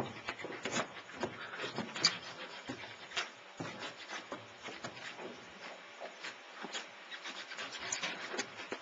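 Irregular light knocks, clicks and rubbing from the floatplane's hull and fittings as it is handled with its engine stopped, the sharpest knock at the very start and another about two seconds in. No engine is running.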